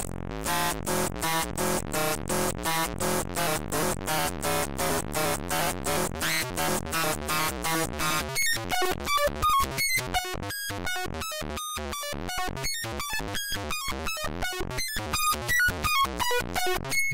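Eurorack modular synthesizer playing a quantized stepped sequence of short notes, about three a second, from two Brooks oscillators wavefolded and modulated through an After Later Audio Valley wavefolder. The notes are dense and buzzy at first; about eight seconds in the tone thins to cleaner, brighter separate notes.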